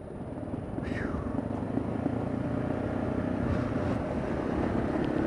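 Kawasaki KLR 650 motorcycle's single-cylinder four-stroke engine running under way on a dirt trail. It grows louder over the first two seconds and then holds steady.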